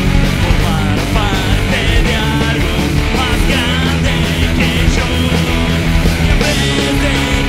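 Studio recording of a rock song: a full band with electric guitar, bass and drums playing at a steady driving pace, with a wavering lead line high over it.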